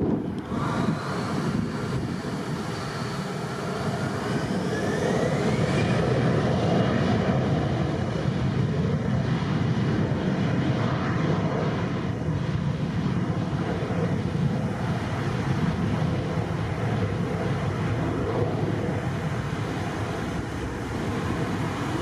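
Embraer ERJ-170's twin CF34 turbofan engines spooling up to takeoff power, a whine rising in pitch over the first several seconds, then a steady jet rumble as the aircraft rolls down the runway. Gusty wind buffets the microphone.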